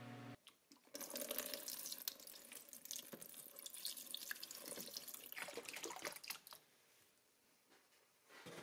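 Liquid rust remover poured from a jug into a plastic bin over metal parts, splashing steadily. The pour stops about six and a half seconds in.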